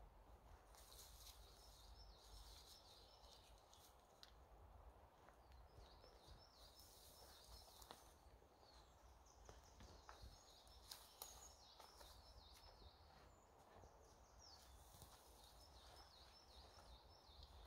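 Near silence in woodland with faint birdsong: groups of short, high, repeated chirping phrases that come and go every few seconds, with a few faint ticks.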